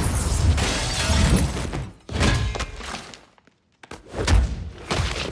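Film action-scene sound effects: heavy thuds and crashes with something shattering, under music. The sound cuts out completely for under a second just past the middle, then more hits follow.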